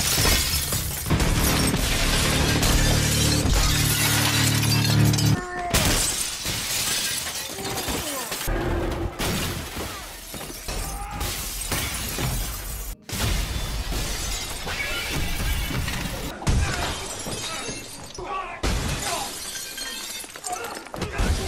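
Glass panes and display cases shattering again and again as bodies crash through them, with the crackle of falling shards and film score music underneath. The sound changes abruptly at several hard cuts.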